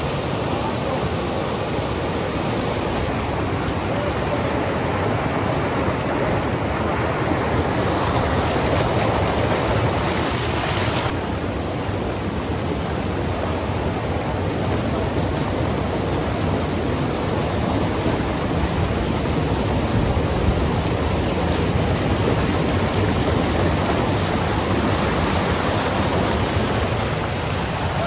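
Rushing water, a loud steady rush with no break; the hiss turns a little duller about eleven seconds in.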